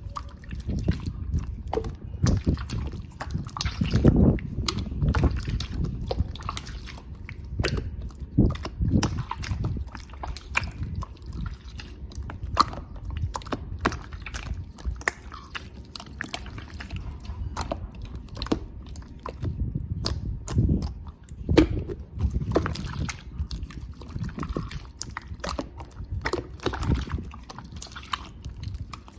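Wind buffeting the microphone, a low rumble that swells and drops in gusts, with many short crackles; it can sound like breathing through the nose.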